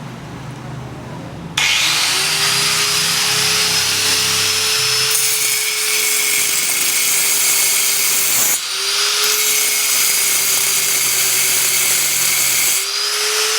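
Handheld power tool routing (grinding out) a crack in a concrete slab core sample. The motor starts about a second and a half in and runs with a loud, steady whine, dipping and picking back up twice, once about halfway through and once near the end.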